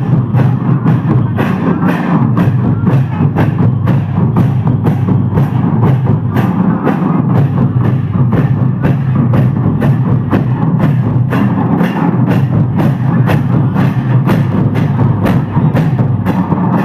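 Music with a steady, fast percussion beat, about three strikes a second.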